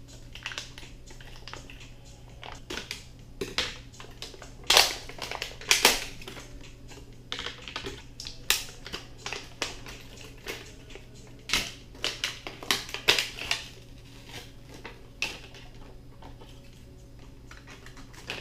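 Plastic shrink wrap being peeled and torn off a lithium-ion battery pack by hand: irregular sharp crinkling and snapping crackles, loudest in a couple of snaps near the middle and a run of crackles later on.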